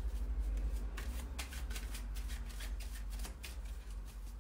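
A deck of cards shuffled by hand: a quick, irregular run of soft card snaps and flicks, over a low steady hum.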